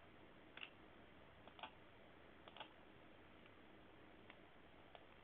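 A few faint computer mouse clicks, the clearest three about a second apart and two softer ones later, over near silence.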